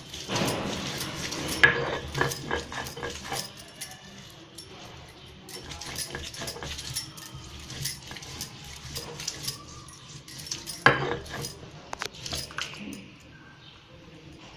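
Stone batta rubbed back and forth over a flat sil grinding stone, grinding amla chutney that is nearly a paste. It makes gritty scraping with irregular clicks and the jingle of bangles on the wrists, and sharp knocks about a second and a half in and again near eleven seconds.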